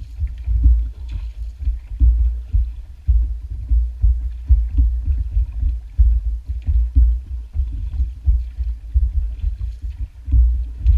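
Small boat being paddled, water sloshing and slapping against the hull in irregular low thumps.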